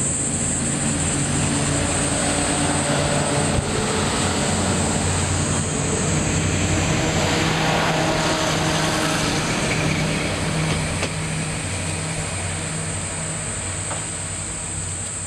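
Diesel railcar's engine running with a steady low drone, the sound swelling to a peak about eight seconds in and easing off after about eleven seconds.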